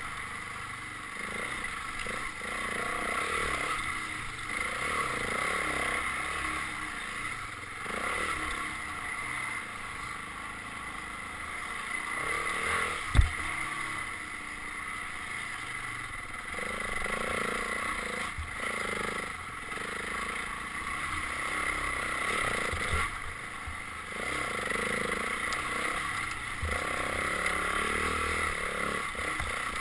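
Dirt bike engine running, its level rising and falling. A single sharp knock comes about halfway through.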